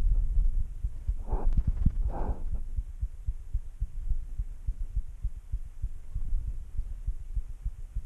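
A cat growling low and continuously, heard up close through the camera strapped to its body, with two short moaning yowls about one and a half and two seconds in. These are typical of a cat standoff before a fight.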